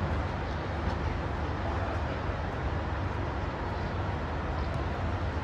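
Steady low hum of idling engines under an even wash of outdoor noise.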